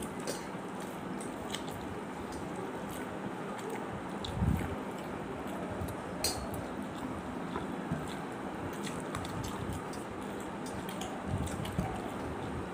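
A person eating rice and curry by hand: soft squishing as the rice is mixed with the fingers on the plate, with chewing and small mouth clicks. A low thump comes about four seconds in and another near the end.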